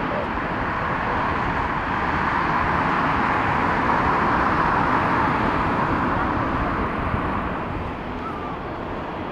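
Airbus A350-941's Rolls-Royce Trent XWB jet engines at taxi power as the airliner rolls past, a steady rushing whine that swells to its loudest about halfway and eases off near the end.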